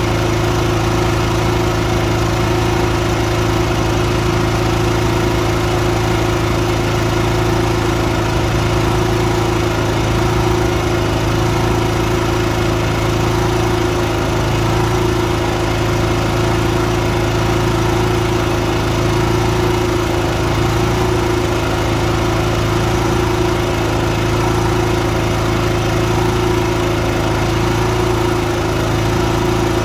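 Honda EB5000i inverter generator running at a steady speed, its carburetor freshly cleaned.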